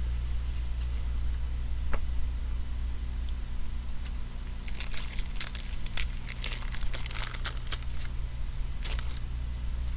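A crinkly wrapper being handled, crinkling in a cluster from about four and a half to nine seconds in, after a single click about two seconds in. A steady low electrical hum runs underneath.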